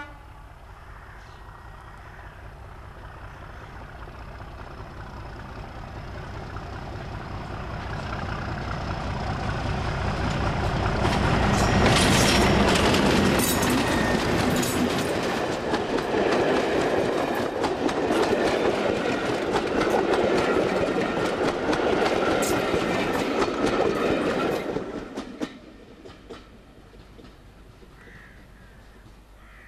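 English Electric Class 37 diesel locomotive D6700 under power, its V12 engine getting steadily louder as it approaches and loudest as it passes close by, with a rapid clicking of wheels over the rail joints as the coaches go past. The sound falls away quickly near the end as the train moves off.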